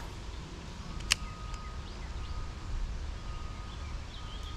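Outdoor creekside background: a steady low rumble of wind or handling on the microphone, one sharp click about a second in, and a faint thin steady tone, with a short bird chirp near the end.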